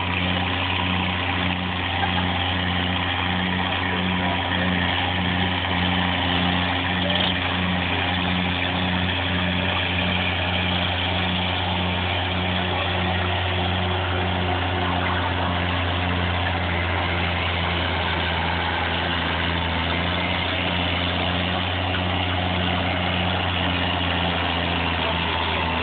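Oliver 88 tractor's six-cylinder engine running steadily under load as it pulls a weight-transfer sled, a low drone with a regular pulse about twice a second.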